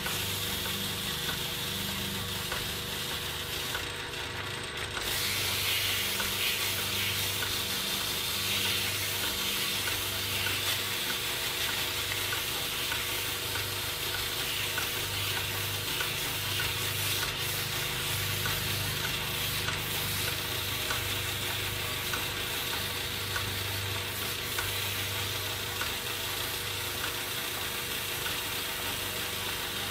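Metal lathe running while a strip of 400-grit sandpaper is held against a spinning metal pin, giving a steady scratchy hiss over the machine's hum. The hiss grows louder about five seconds in. The pin's rough surface is being polished smooth so it sticks less.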